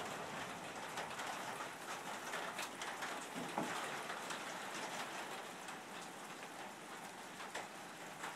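Steady rain falling, an even hiss with scattered sharper drips.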